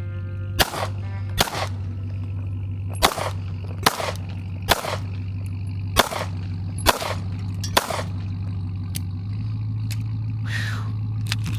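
A string of about eight gunshots at a steady pace over the first eight seconds, some followed by the brief ring of hit steel targets, over a steady low hum.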